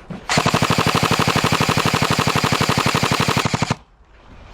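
An airsoft rifle firing one long full-auto burst: a rapid, even stream of shots lasting about three and a half seconds, close and loud, that stops abruptly.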